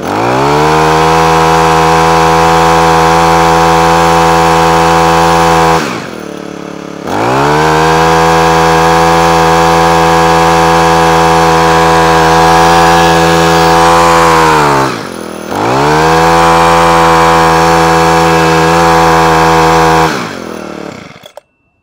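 Honda HHH25 hedge trimmer's small four-stroke engine revved to full throttle three times, holding steady high revs each time with brief drops back toward idle between, then winding down and stopping near the end. After a carburettor clean and new diaphragm it holds full revs without cutting out.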